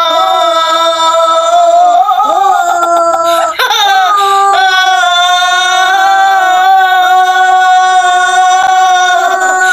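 A young girl holding a long, steady "Ooooo" at a single pitch in a contest to see who can hold it longest. She breaks off briefly about three and a half seconds in, then takes it up again on one long unbroken note.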